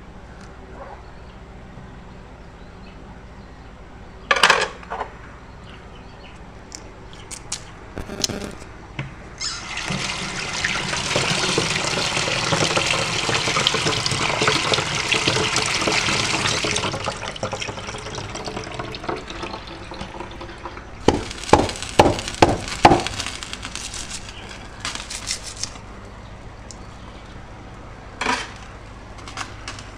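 A stream of water running for about seven seconds, starting a few seconds in, then a quick series of sharp knocks.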